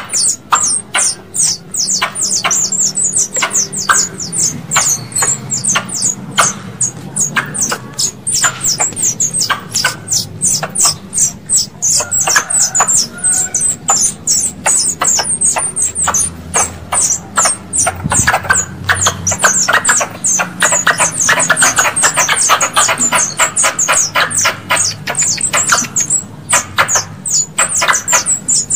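Squirrel calls used as a lure: a continuous run of short, sharp, high chirps, each dropping quickly in pitch, several a second, crowding closer together in the second half.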